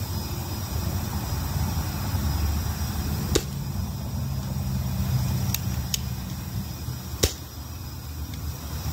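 Sig Sauer MPX airsoft rifle, with a homemade cardboard tube over the muzzle, fired twice: two sharp shots about four seconds apart, with a couple of fainter ticks between them, over a steady low rumble.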